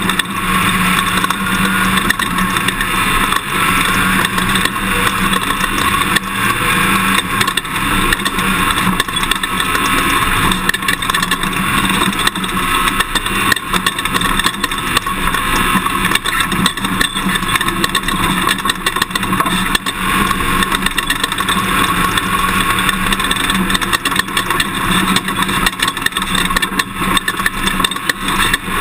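Toyota Tundra pickup truck driving a dirt off-road course. The engine runs steadily under a constant rush of road and wind noise, with frequent knocks and rattles from the rough ground.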